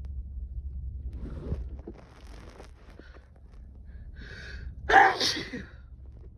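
A man sneezing hard once about five seconds in, in the middle of a sneezing fit. Before it come quiet breathing and a short, sharp intake of breath as the sneeze builds.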